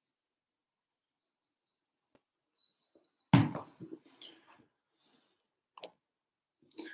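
Faint high chirps, then a sudden loud thump about three seconds in, followed by a few scattered knocks and clicks. The last knocks come as the camera is jostled.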